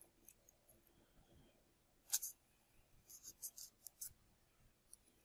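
Mostly near silence, with a few faint, short scratchy strokes of a blade cutting the model's engine template: one about two seconds in, a small cluster about a second later, and one more near the four-second mark.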